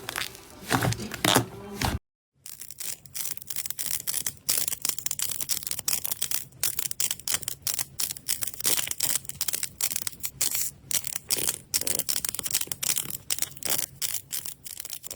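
Slime being squeezed and pressed by hand, giving off dense, irregular crackling and popping. There is a short break about two seconds in, where one clip cuts to the next.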